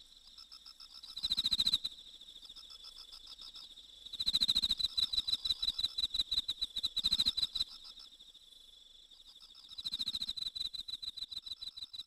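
Crickets singing: a steady high trill throughout, with three louder bouts of rapid pulsed chirping, about a second in, from about four to eight seconds, and near the end.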